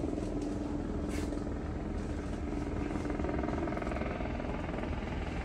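A steady low mechanical drone, like an engine or rotor running, with a constant hum.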